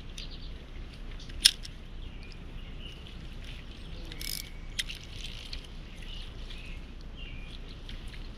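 Spinning fishing reel being worked during a retrieve after a cast, with one sharp click about a second and a half in and a smaller click near five seconds. Faint bird chirps run over steady outdoor background noise.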